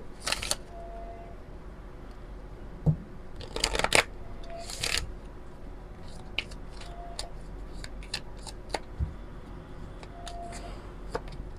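A deck of oracle cards being shuffled by hand: irregular bursts of card rustling in the first five seconds, then a run of light, scattered card clicks.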